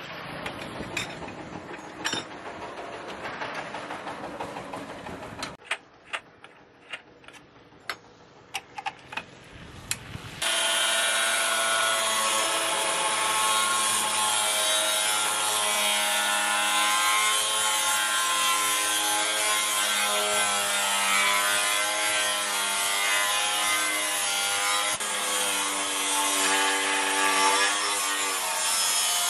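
Scattered light metal clicks and knocks, then about ten seconds in an electric angle grinder with a thin cut-off disc starts up. It runs steadily and loudly, cutting through a steel chainsaw guide bar, with a slightly wavering whine over a hiss.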